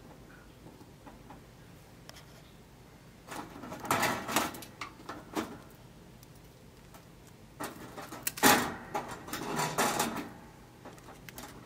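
Crisp toasted bread being handled on a toaster oven's wire mesh rack: dry scraping and rustling as the slices are moved, topped with cheese and the top slice set on and pressed down. The sounds come in two bouts, about three to five seconds in and again from about eight to ten seconds in, the loudest at about eight and a half seconds.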